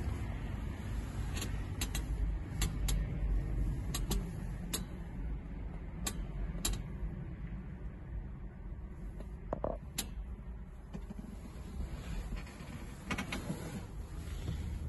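Steady low rumble inside a van cab, with about a dozen short sharp clicks and knocks scattered through it, most in the first seven seconds and a few more near the end.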